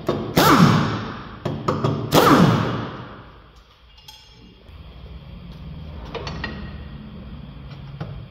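Impact wrench run in two short bursts, each dying away in a falling whine, with a few clinks of metal tools in between.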